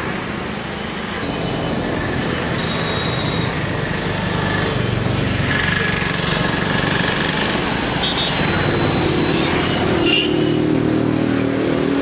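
Steady rumbling noise like road traffic, with a few short high tones over it.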